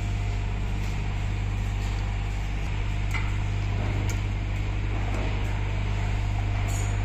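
Steady low electrical hum, even and unchanging, with a few faint clicks from small parts being handled.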